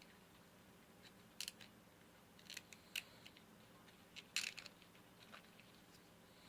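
Faint, scattered small clicks and short scratchy rubs, the longest and loudest about four and a half seconds in: a pipe cleaner being worked through a tobacco pipe.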